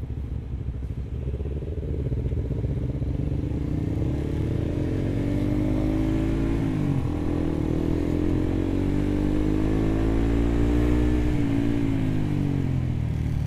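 Motorcycle engine under the rider accelerating through the gears: the pitch climbs, drops sharply about seven seconds in and again near the end as it shifts up, then climbs again.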